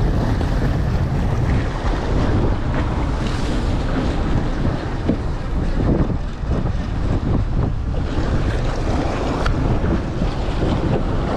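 Wind buffeting the microphone over water rushing and splashing along the hull of a boat under way, a loud, steady rush with a few brief splashes in the middle.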